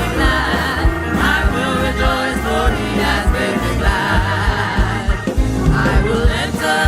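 Live church worship music: several voices singing an upbeat gospel praise song over a band, with held bass notes and a steady drum beat.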